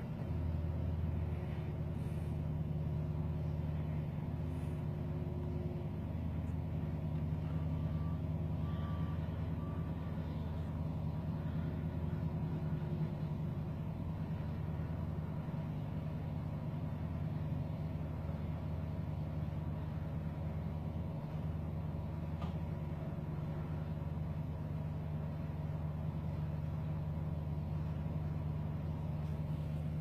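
Sidewalk tractor with a front-mounted snowblower running steadily as it clears snow: an even, low engine drone.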